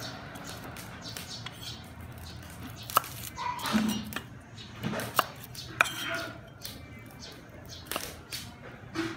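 A few scattered sharp knocks of a cleaver against a wooden chopping board as garlic cloves are cut and peeled by hand.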